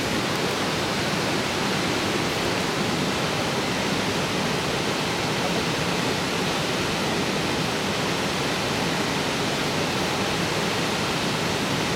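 Steady rushing of river water pouring over a weir: a constant, even hiss that does not change.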